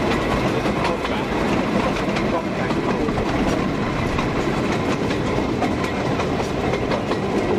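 A narrow-gauge steam train running along the line, heard from a carriage: a steady rumble with constant clicking and clatter of wheels on the track.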